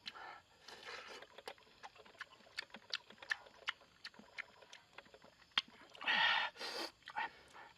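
Irregular light knocks and clicks, with a louder rush of noise about six seconds in.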